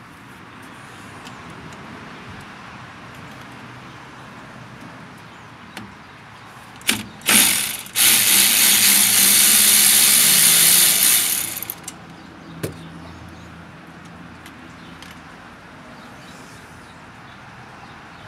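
A cordless power tool, a white ratchet or driver, gives two short bursts and then runs steadily for about four seconds. It is undoing a wheel cylinder mounting bolt on the back of a drum brake backing plate.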